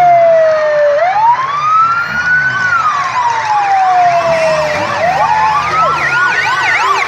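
Police sirens: one slow wail rising and falling about every four seconds, with a second, faster yelping siren joining about three seconds in.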